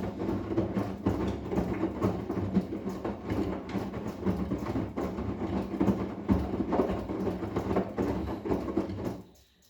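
Arçelik 10121 front-loading washing machine running with its drum turning: a steady rumble with a low hum and rapid knocking. It cuts off suddenly near the end.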